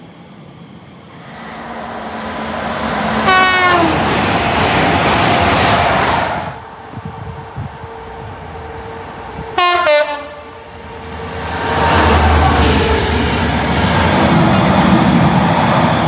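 A train passes at speed, sounding a short horn blast about three seconds in whose pitch slides down as it goes by. About ten seconds in a second short, loud horn blast sounds, and a second train passes with a heavy low rumble.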